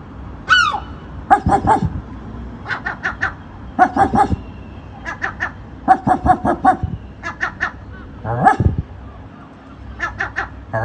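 Seagull giving short, dog-like barking calls in quick runs of three to five, about one run a second, with a falling squawk near the start and another near the end.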